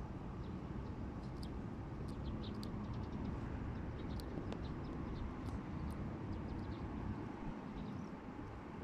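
Outdoor background with a steady low rumble and many brief, high chirps from small birds scattered throughout.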